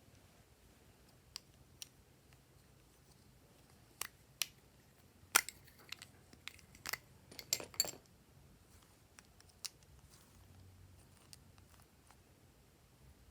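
Glossy slime being worked by hand: scattered sharp sticky clicks and pops, bunched together in the middle and sparse before and after.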